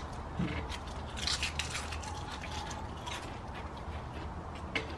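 Pringles potato chips being bitten and chewed, with irregular crisp crunches and crackles.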